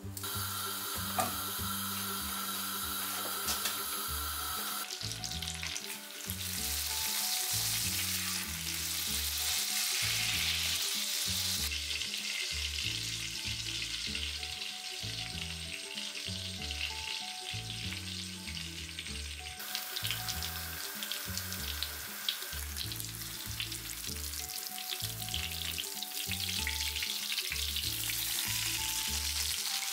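Panko-breaded veal escalope frying in butter in a frying pan: a steady sizzle that shifts abruptly in loudness and tone a few times.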